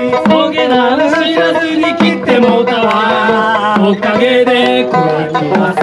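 An Okinawan-style song played live: a man singing over a plucked homemade sanshin, with hand percussion keeping a steady beat.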